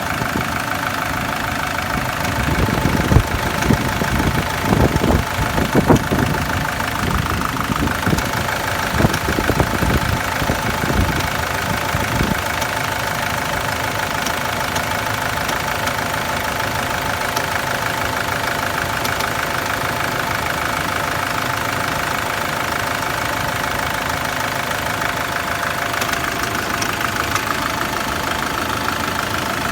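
SsangYong Kyron engine idling, with an extraneous knock: a run of irregular low knocks for several seconds in the first half, then steadier running. The knock's cause is not known.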